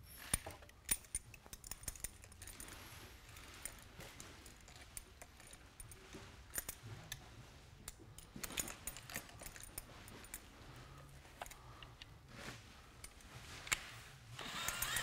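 Small metal clicks and clinks from locking pliers clamped on a screw and an extractor bit in a cordless drill chuck as the bit is worked out of the screw head. Near the end comes a short, louder whir, the drill turning the extractor free.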